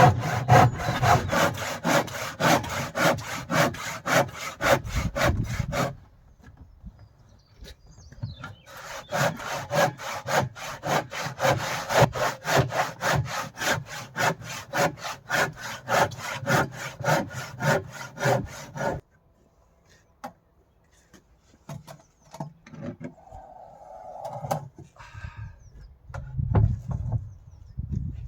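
Handsaw cutting across a wooden door to shorten it, in rhythmic strokes about three a second. There are two runs of sawing with a pause of a few seconds between them, then a few light knocks and shuffling.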